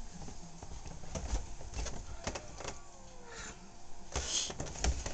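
Irregular thuds and knocks of footsteps coming down carpeted stairs, mixed with the rubbing and bumping of a handheld camera being moved about.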